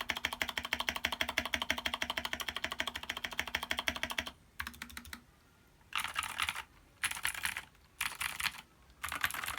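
Anne Pro 2 mechanical keyboard with clicky Gateron Blue switches, lubed and filmed, in a foam-dampened, tape-modded case, being typed on. A fast, even run of keystrokes for about four seconds, then a brief lull and short bursts of typing about once a second.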